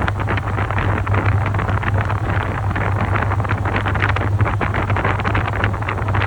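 Top-loading washing machine running: a steady low motor hum under the rough, uneven rush of water and laundry churning in the tub.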